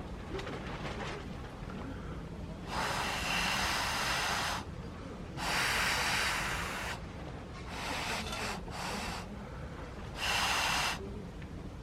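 Four long puffs of blown air, each one to two seconds, as someone blows on lit charcoal to bring it up; the last two are shorter.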